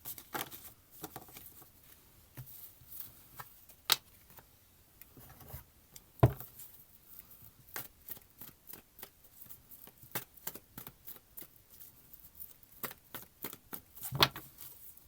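Tarot cards being handled, shuffled and laid down, giving an irregular run of soft clicks and snaps. A sharper knock comes about six seconds in.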